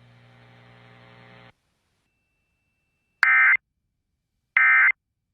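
Emergency Alert System end-of-message signal: short, identical digital data bursts of SAME tones, two of them about a second and a half apart. A faint electrical hum cuts off before them.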